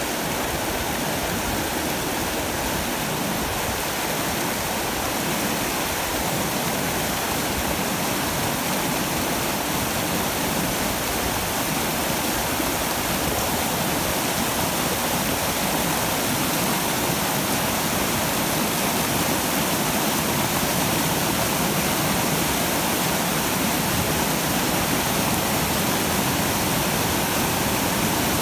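Glacial meltwater river rushing through whitewater rapids over rocks: a steady, loud roar of water.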